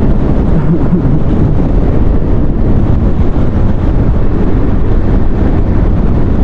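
Steady wind rush on the microphone over the running engine of a 2019 Suzuki Hayabusa being ridden at road speed in traffic.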